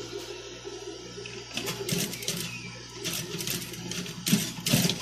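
JUKI industrial sewing machine stitching in three short bursts, starting about a second and a half in, over a steady low hum.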